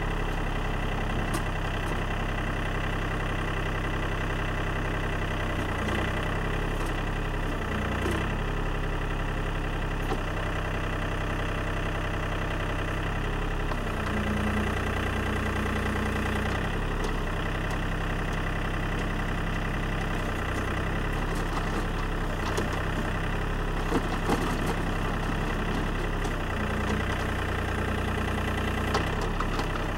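John Deere compact tractor's engine running steadily while it powers a 47 backhoe digging earth. Its note shifts several times as the backhoe moves, with a few sharp knocks near the end.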